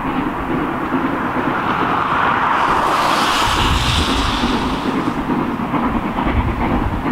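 Steam-hauled heritage train running, a steady rumble of locomotive exhaust and rolling wheels, with a louder hissing rush swelling for a couple of seconds about three seconds in.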